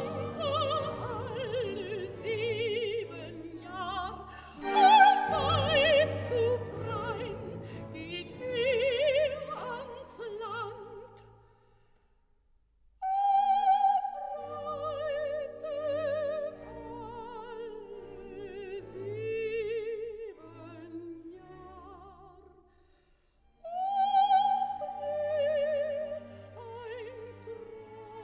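Operatic soprano singing with wide vibrato over an orchestra, in phrases broken by two short pauses.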